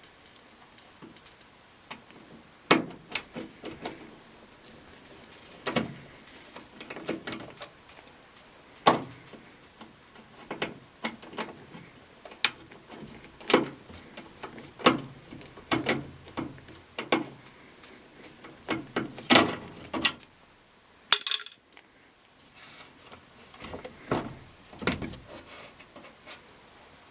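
Irregular clicks, taps and clatter of hand tools and screws on the plastic parts of an LG front-load washer as the screws holding the drain pump housing are taken out. The sounds come singly and in short clusters, with a brief lull about two-thirds of the way through.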